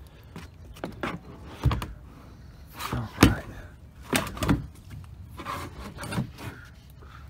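Plastic kayak hull knocking and scraping as it is hauled out of the water onto the island bank: a string of irregular knocks and scuffs, the loudest about three seconds in.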